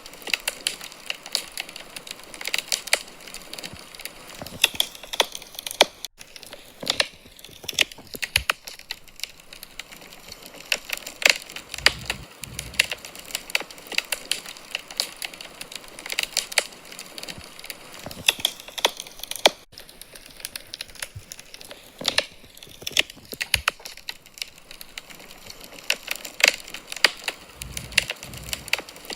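Wood fire crackling in a fireplace: frequent sharp pops and snaps over a faint hiss, with a soft low thump about twelve seconds in and another near the end.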